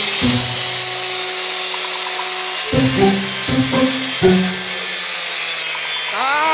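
Handheld angle grinder cutting into a metal casing: a steady, dense grinding hiss. Background music with short pitched notes plays underneath.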